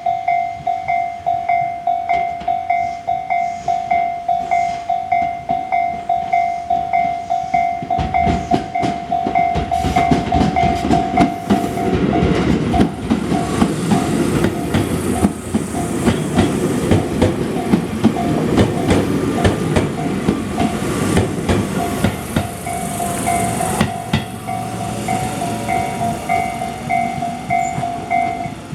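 Japanese level-crossing warning bell ringing in a steady repeated ding. From about eight seconds in a train passes, its wheels clacking over the rail joints. The train's noise fades about 24 seconds in, and the bell stops near the end.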